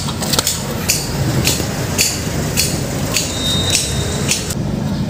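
Sharp knocks repeating about twice a second over a steady low hum, with a brief high whistle near the end.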